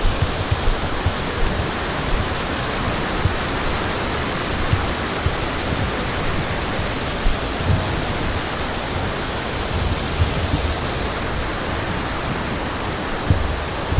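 Fast mountain stream rushing over rocks at a ford, a loud, steady roar of water, with occasional short low thumps.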